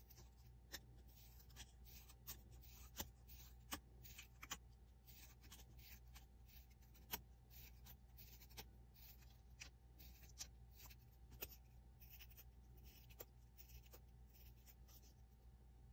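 Small scissors snipping a fringe into black paper: a regular series of quiet snips, about one every three-quarters of a second.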